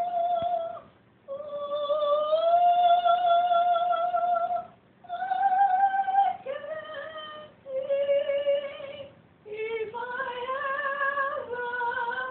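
A woman singing with no accompaniment, holding long high notes of a few seconds each with short breaks between.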